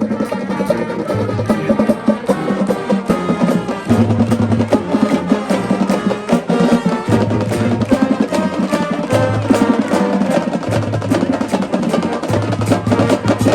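High school marching band playing: brass and winds over a drumline keeping a steady beat, with low bass notes coming back in repeated held blasts.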